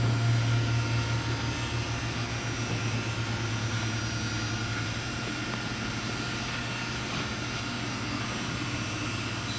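Automated assembly machine running with a steady low hum and a hiss of machinery noise, a little louder in the first second.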